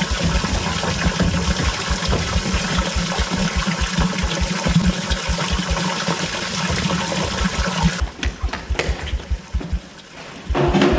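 Running water with a fast, steady low pulse underneath, about four or five beats a second. The water noise cuts off about eight seconds in, while the pulse goes on.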